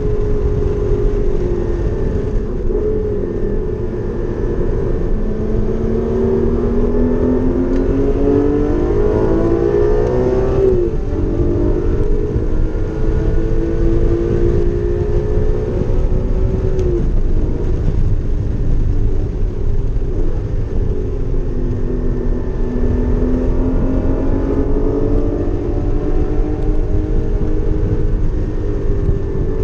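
Porsche Cayman GT4's flat-six engine on track at high revs. Its pitch climbs under acceleration and drops sharply about eleven seconds in, as at an upshift, then climbs and drops again about seventeen seconds in, over constant low road and tyre rumble.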